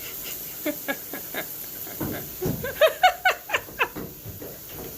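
An animal making a quick series of short, pitched cries, about eight in all, loudest about three seconds in.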